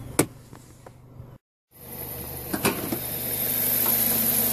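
Hood release lever of a 2008 Toyota Corolla pulled, the hood latch letting go with one sharp click. After a break, a steady hum and hiss with a couple of light clicks, slowly growing louder.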